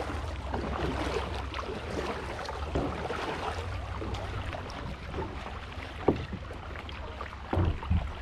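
Kayak paddling on calm water: paddle blades dipping and water splashing and trickling around the plastic hull, over a low wind rumble on the microphone. A sharp knock comes about six seconds in, and a couple of thumps near the end.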